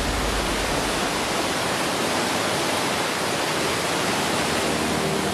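Steady rushing of a fast-flowing underground river with rapids, an even, unbroken noise; a deep rumble under it drops away about a second in.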